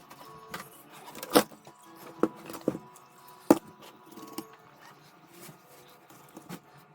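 Clicks and knocks of small objects being handled on a workbench: a few sharp taps, the loudest about a second and a half in and another sharp one about three and a half seconds in.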